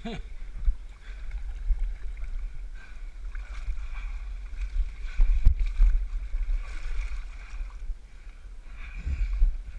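Water sloshing and lapping around a floating pack and the camera on it as a person swims, with low rumbling thumps of water against the camera housing, strongest about halfway through.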